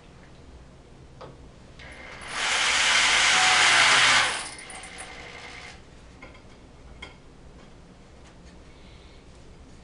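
A handheld power tool runs in one loud burst of about two seconds, then dies away, while boards are being assembled. A couple of light knocks come before and after it.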